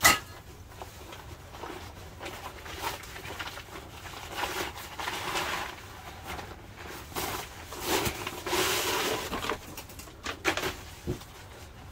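Stiffening poles and fabric being handled and fitted into camping gear. There is a sharp snap right at the start, then two longer stretches of rustling and a few light clicks near the end.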